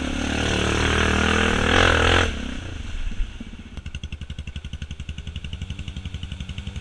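ATV engine revving hard as the quad ploughs through a mud hole, with mud and water splashing, cutting off abruptly about two seconds in. Then another off-road vehicle's engine is heard at low revs with an even pulsing beat as it comes up the trail.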